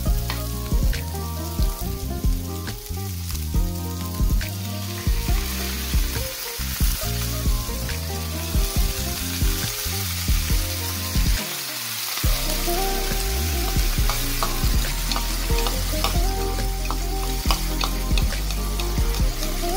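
Salmon fillets and vegetables sizzling in a hot frying pan, the sizzle growing stronger about five seconds in as miso sauce goes onto the hot pan. Background music with a steady pulse plays throughout.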